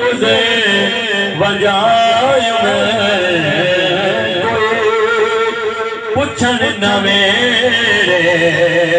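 A man singing a Sufi kalam into a microphone, amplified through a PA. It is a slow, heavily ornamented melody whose pitch glides and bends over a steady held drone, with a brief break for breath about six seconds in.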